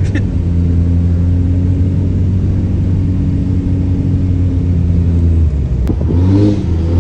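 Cummins turbo-diesel pickup engine running at a steady speed, then revving up and back down near the end, with a short click just before the rev.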